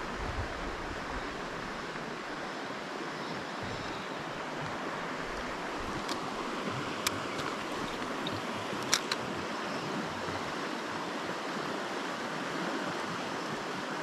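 Shallow river water rushing over rocks in a riffle, a steady noise. A few short sharp clicks sound around the middle.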